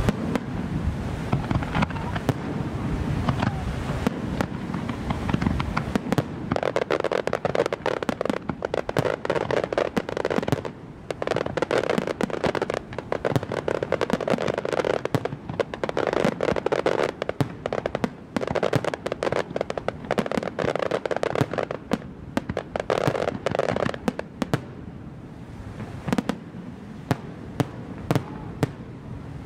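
Aerial firework shells bursting in rapid, dense volleys of bangs, thinning to scattered single reports in the last few seconds.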